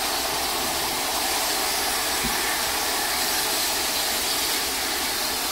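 Steam locomotive 3801, a streamlined NSW C38-class Pacific, blowing off steam at its safety valves in a steady hiss. Blowing off like this means the boiler is at full working pressure.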